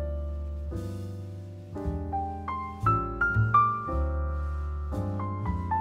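Background music: a piano playing a slow melody, single notes struck over sustained low bass notes.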